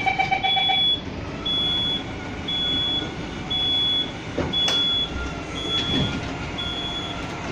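Bus automatic wheelchair ramp (Masats RT1 telescopic ramp) retracting under the closed door, its warning beeper sounding a half-second high beep about once a second over a faint steady whine from the drive. For the first second the rapid pulsed door-closing chime overlaps it, and there are a couple of knocks near the middle as the ramp draws in.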